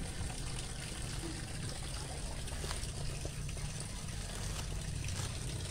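A few faint knocks of a cleaver chopping red onion on a wooden cutting board, under a steady rushing noise with a low rumble.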